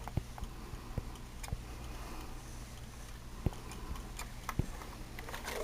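A clothes iron worked along plastic edge banding to re-melt its glue, giving faint, irregularly spaced clicks and knocks over a low steady hum.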